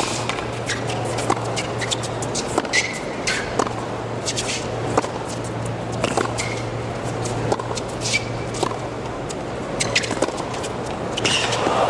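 Hard-court tennis rally: repeated sharp pops of racket strings striking the ball and sneakers squeaking on the court, over a low steady hum. Crowd noise swells near the end as the point finishes.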